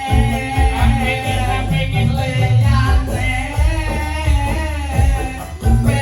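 Live band music with a vocalist singing a wavering, ornamented melody over strong bass.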